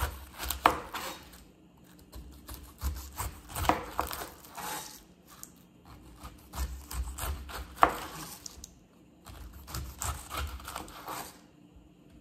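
A kitchen knife cutting the rind off a pineapple on a cutting board: irregular knocks of the blade into the board with scraping and rubbing in between. It comes in four spells with short pauses, and the sharpest knocks fall about a second in, near four seconds and near eight seconds.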